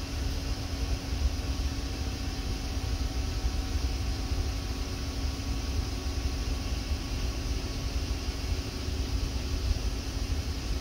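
Siemens Symbia S SPECT gamma camera's motor drives running steadily as its two detector heads swing to a new angle, a continuous mechanical whir over a low hum.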